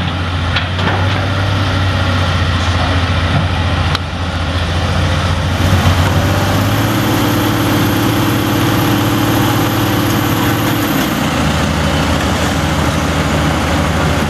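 Excavator's diesel engine running steadily with a deep hum; from about six seconds in a higher tone joins it, and it drops away again a little after eleven seconds.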